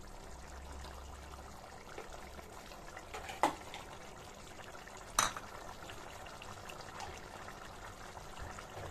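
Chicken curry simmering in a kadai, a steady bubbling hiss, with a few sharp clicks, the loudest about three and a half and five seconds in.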